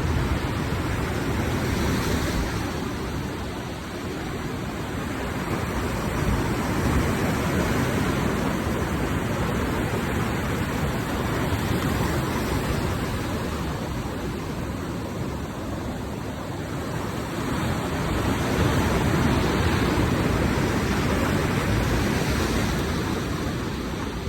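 Sea waves breaking and washing on the shore: a continuous rushing surf that slowly swells and eases over several seconds.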